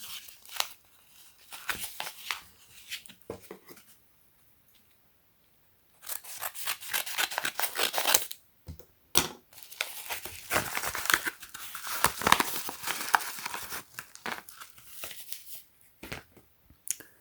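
Plastic packaging being torn and cut open and crinkled by hand: dense crackling and snapping, stopping for about two seconds partway through, then resuming and keeping on.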